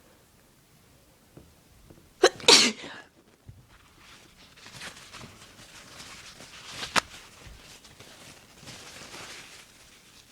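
A person sneezes hard once, about two seconds in, an induced sneeze: a sharp catch, then the loud explosive burst. Several seconds of softer breathy hissing follow, with one brief sharp click partway through.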